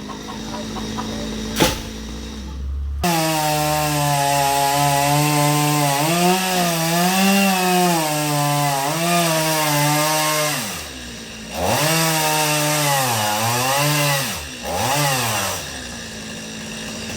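Two-stroke chainsaw cutting into a coconut palm trunk. The engine runs at high speed and its pitch sags and recovers again and again as the chain bites, dropping away briefly about eleven seconds in. For the first three seconds it runs quieter, with one sharp click.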